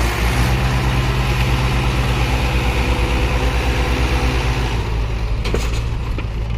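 Tractor diesel engine running steadily with a pulsing low beat; about five seconds in it eases off and quietens somewhat.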